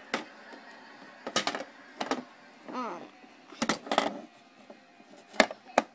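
Royal 435DX electronic cash register being switched on and handled: a scattering of sharp clicks and knocks from its control-lock switch, keys and housing.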